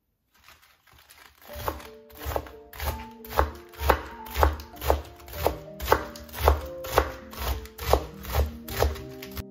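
Kitchen knife slicing through a head of romaine lettuce and striking a wooden cutting board, about two even cuts a second, starting about a second and a half in. Background music with held notes plays underneath.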